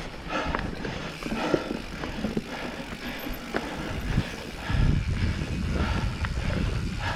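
Mountain bike riding over a dirt trail: tyre noise and rattles with scattered sharp clicks, and wind buffeting the microphone, strongest from about two-thirds of the way in. The rider's heavy breathing comes through in repeated puffs.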